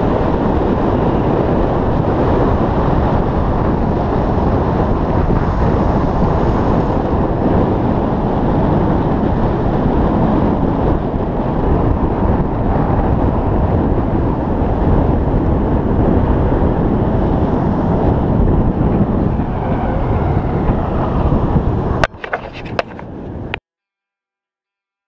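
Wind buffeting the camera microphone over the rumble of longboard wheels on asphalt during a fast downhill run. The noise stays steady, turns choppy about 22 seconds in, and then cuts off suddenly to silence.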